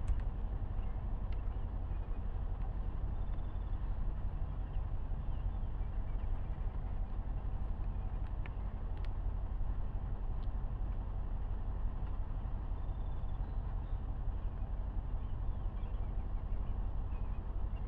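Vehicle engine idling steadily, a low even rumble heard from inside the cab.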